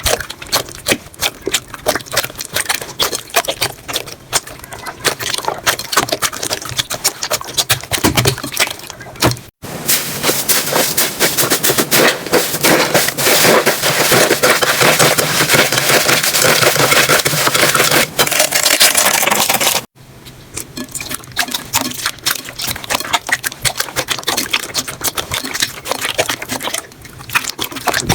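Slime being squeezed and pressed by hand, a dense run of small pops, clicks and crackles. It comes in three clips cut together, the middle one thicker and louder.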